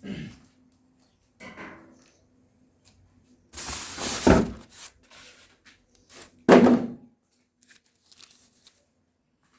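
Packaging being handled and pulled open during an unboxing: a stretch of scraping and tearing about three and a half seconds in, then a loud thump about six and a half seconds in, with a few smaller knocks around them.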